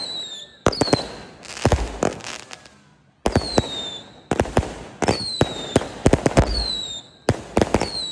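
An 88-shot firework cake firing shot after shot, roughly one a second. Each shell goes up with a short falling whistle and breaks with sharp bangs and crackling. There is a brief lull about three seconds in.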